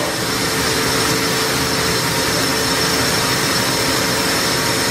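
Okuma MILLAC 800VH machining center running with its spindle turning a small end mill in free air: a steady hiss with an even, unchanging whine.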